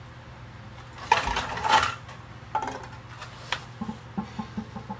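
A heavy, rusted old iron pulley block is handled and lifted. About a second in there is a loud scraping clatter of rusty metal, followed by two lighter knocks. Near the end a quick run of rhythmic ticks follows, about five a second.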